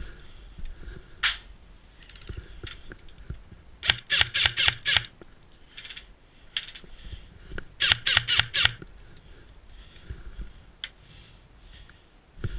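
Airsoft gun firing two short rapid bursts of about six shots each, about four and eight seconds in, with a few single shots between.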